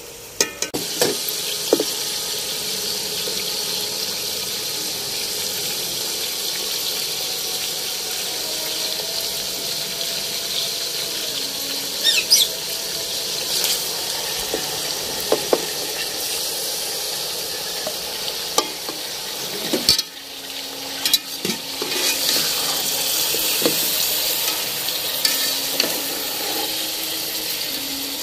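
Chicken pieces sizzling in hot oil in an aluminium pot, with a metal spatula scraping and clicking against the pot as they are stirred.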